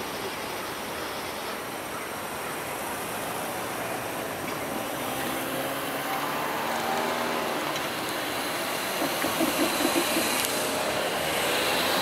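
Road traffic driving across the railroad crossing once the gates are up. A car engine's note rises and falls in the middle, followed by a brief pulsing engine throb and the louder noise of more cars approaching near the end.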